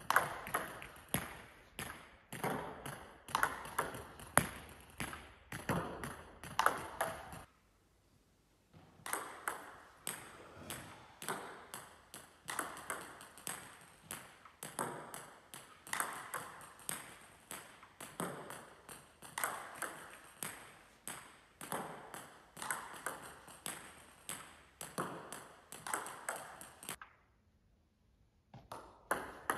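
Table tennis balls being served one after another in side-spin hook serves: sharp clicks of the ball against the racket and bouncing on the table, in quick clusters. There are two short silent breaks, about eight seconds in and near the end.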